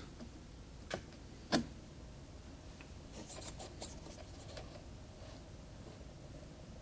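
Fingers handling a sealed plastic blister pack of cards: two light taps on the plastic about a second in, then faint crinkling as it is turned.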